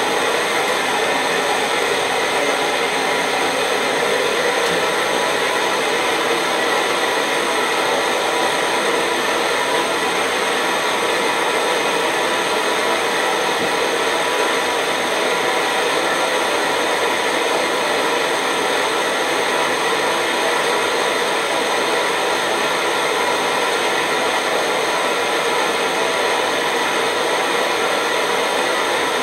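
Optimus 111 paraffin stove's roarer burner running under a kettle, a loud, steady, even rushing noise that does not change.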